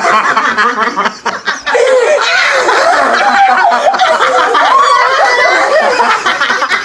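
Several people snickering and laughing together, their voices overlapping, alongside silly vocal noises made for a game where anyone who laughs has to eat a lemon.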